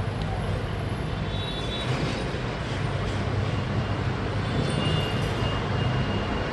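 LG 8 kg top-load inverter washing machine running a steady, low hum and rumble as it tries to spin the drum but cannot get it turning. The technician puts this down to a failed, oil-leaking gearbox.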